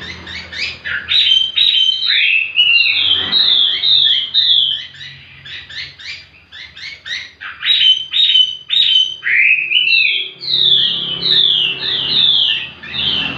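Chinese hwamei (wambi) singing a loud, varied song of rapid, repeated down-slurred whistles, easing off into a lull a little before the middle and then starting up again strongly.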